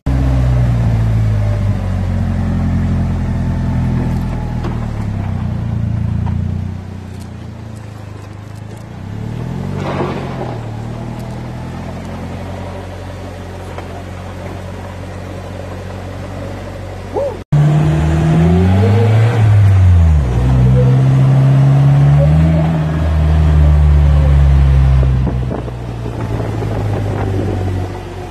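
Polaris Slingshot three-wheeled roadster's engine running under way, heard from the open cockpit, its pitch rising and falling as it speeds up and shifts. It is quieter through the middle stretch. After a sudden cut about two-thirds of the way through, it revs harder, climbing and dropping several times.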